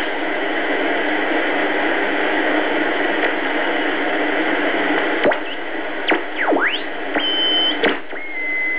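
BC-312G shortwave tube receiver hissing with static between stations as it is tuned. In the second half, whistles slide up and down as the tuning passes over signals, then a single steady whistle sets in near the end.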